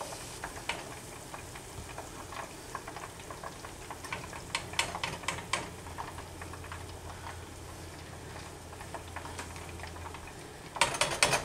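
Chicken wings frying in hot oil: a steady sizzle with scattered crackles and pops. A short burst of clattering comes near the end.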